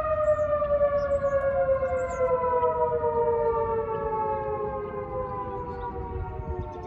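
Siren winding down, its pitch falling slowly and steadily.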